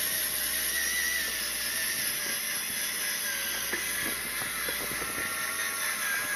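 A steady motor whine, slightly wavering in pitch, over a constant hiss, with a few faint clicks.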